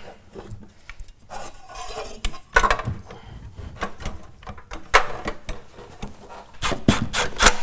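Irregular metallic clinks, clicks and knocks as recoil pull-starter housings are fitted onto small engines and their bolts run in with cordless drivers, with a quick cluster of sharp knocks near the end.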